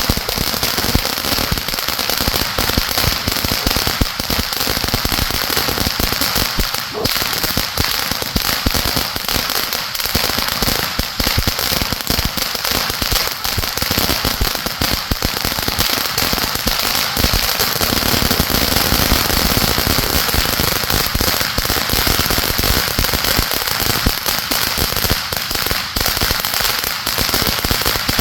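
Fireworks crackling and popping in a dense, unbroken rattle of small sharp reports at a steady loudness.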